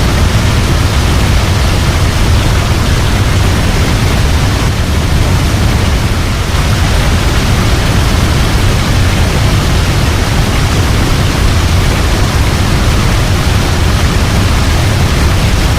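Waterfall: a steady, loud rush of falling water with a strong low rumble under an even hiss, unchanging throughout.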